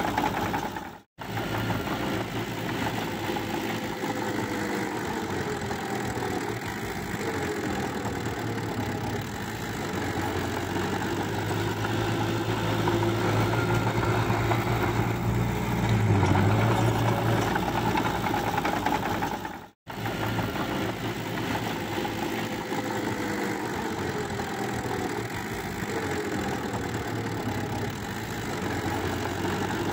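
Small DX40M crawler bulldozer's diesel engine running steadily under load as it pushes mud, with a slight rise in pitch now and then. The sound cuts out abruptly twice, about a second in and about twenty seconds in.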